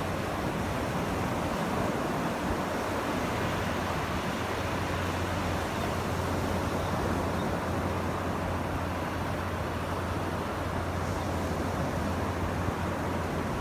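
Small surf breaking and washing up the sand at the shoreline, a steady wash of noise with a steady low hum underneath.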